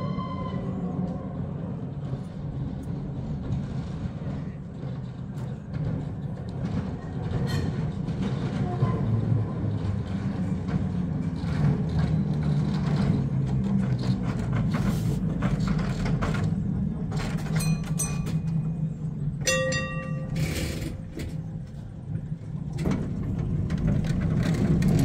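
Amsterdam electric tram 474 approaching and passing close on its rails: a steady low rumble that grows louder near the end, with scattered clicks and a few brief ringing tones about three-quarters of the way through.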